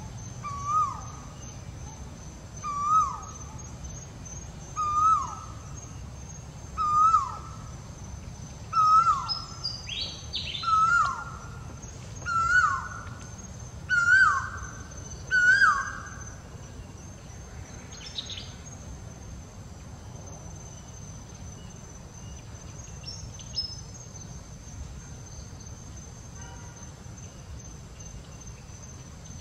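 A bird calling a repeated note about every two seconds, each a short call that slides down in pitch. The series grows louder and slightly higher over nine calls in the first half, then stops. A steady high-pitched whine and a few brief higher chirps sound behind it.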